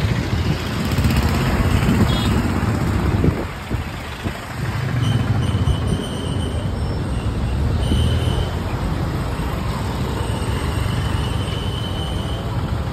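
Busy road traffic: a bus and auto-rickshaws passing with a continuous engine rumble, with a few short high tones from about five seconds in.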